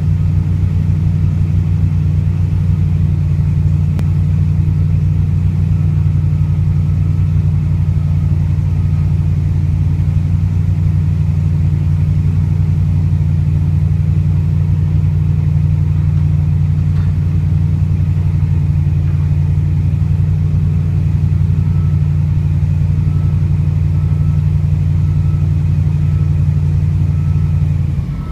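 Diesel engine of an amphibious marsh excavator running steadily, a loud low hum that holds an even pitch throughout.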